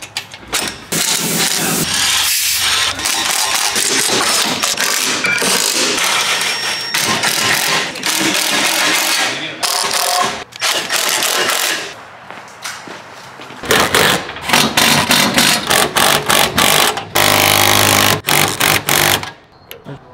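Power tool running in rapid hammering bursts with short pauses, driving the bolts on an exhaust clamp.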